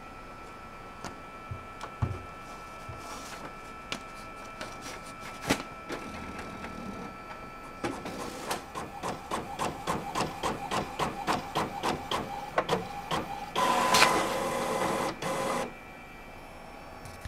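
Desktop inkjet printer printing a sheet. Quiet scattered clicks come first, then a fast, even run of clicks at about three a second. About two-thirds of the way in, a louder, steady motor whirr takes over for about two seconds.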